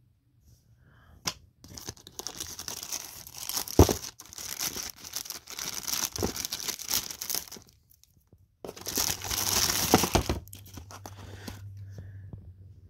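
Clear plastic bag crinkling and rustling as a portable LCD TV is handled and slid out of it, in two long stretches with a few sharp knocks.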